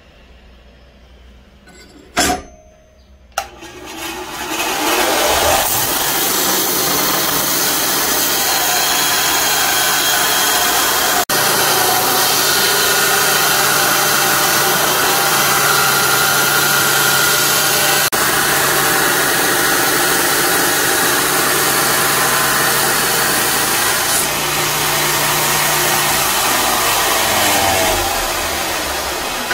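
Belt grinder running with a steel knife blank pressed against the abrasive belt: a loud, steady grinding hiss over a low motor hum, starting about four seconds in and easing off near the end. Before it, two sharp metallic knocks.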